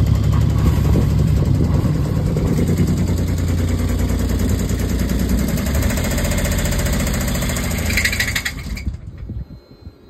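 Universal M25XP three-cylinder marine diesel running steadily, with a low pulsing beat, the noise the owner calls bad sounds. Just after eight seconds a brief higher rattle comes in, and about nine seconds in the engine stops.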